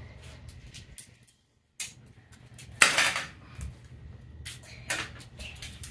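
Clear adhesive tape being pulled off a roll and torn, a short loud rasp about three seconds in, among light clicks and taps of things handled on a tabletop.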